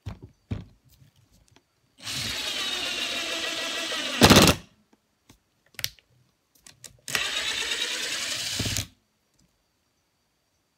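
Makita cordless impact driver on its low power setting driving a screw into a wooden board: it runs in two bursts of about two seconds each, the first ending in a short, louder burst.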